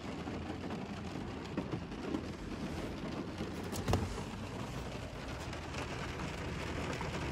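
Heavy rain falling steadily on a car's roof and windows, heard from inside the cabin, with one sharp knock about four seconds in.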